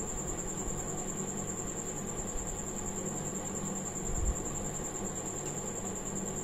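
Steady background hum and hiss with a thin high whine running throughout, and one soft low thump about four seconds in.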